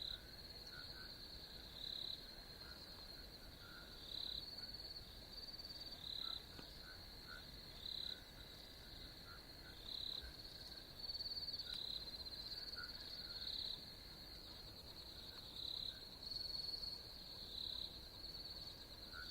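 Insects trilling steadily at a high pitch, swelling into louder pulses about every two seconds, with softer short chirps at a lower pitch.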